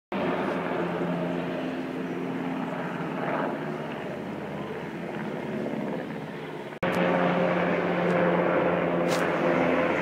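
Helicopter flying overhead: the steady drone of its rotor and engine. The sound cuts out abruptly for a split second about seven seconds in, then carries on.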